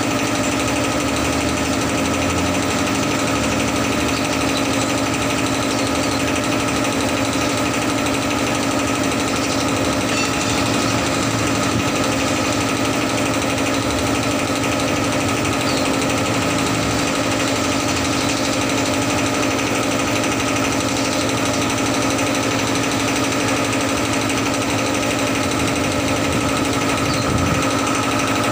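A machine running steadily nearby: a constant hum with a fast, even rattle.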